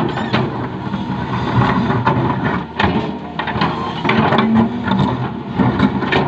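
Excavator's diesel engine running under load while it digs and levels soil, with repeated clanks and knocks from the bucket and arm.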